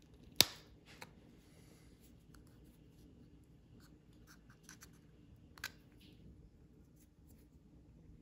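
Small flathead screwdriver prying at the plastic shell of a Hyundai Santa Fe key fob. There is one sharp plastic snap about half a second in, then light clicks and scraping as the fob and screwdriver are handled, with another click about five and a half seconds in.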